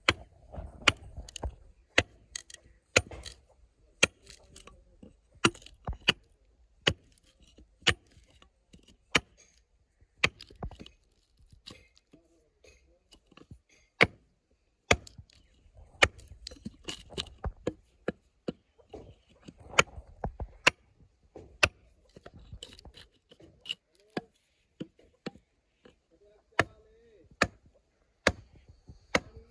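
A run of sharp, irregular knocks or chops, about one or two a second, that thin out for a few seconds around the middle.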